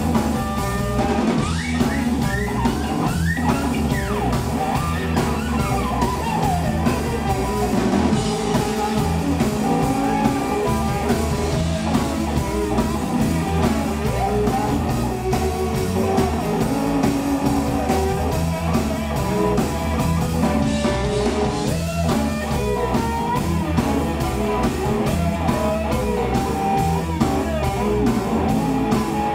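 Live electric blues band: lead electric guitar playing over bass and a drum kit beat, with bent and sliding notes in the first few seconds.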